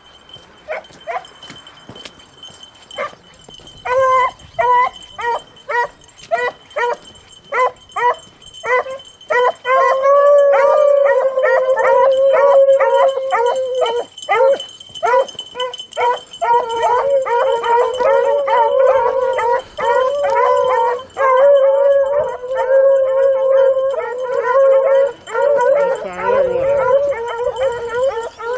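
A pack of beagles baying while running a rabbit. At first there are scattered single barks, which quicken into rapid chop barks about four seconds in. From about ten seconds in, several hounds give long, drawn-out bawls that overlap one another.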